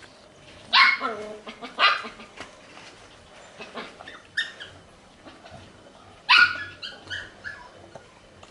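Sharp cries from a pet animal: three loud short ones, about a second, two seconds and six seconds in, with fainter ones between.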